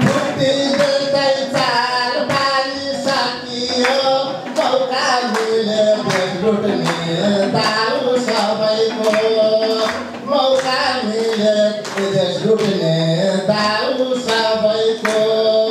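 A man singing a Nepali poem into a microphone in a tuneful chant, with the audience clapping along in time, about two claps a second.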